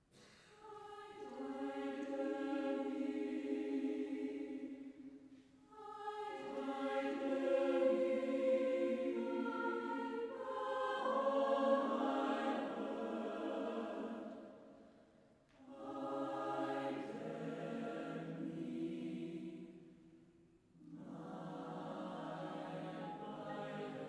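Mixed choir of men's and women's voices singing sustained chords in phrases of a few seconds each, with short breaks between phrases; it comes in out of silence about half a second in.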